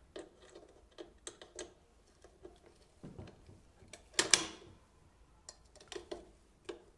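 Scattered light clicks and taps from handling and fastening the adjustable palm rest of a target rifle, with a louder brief noise about four seconds in.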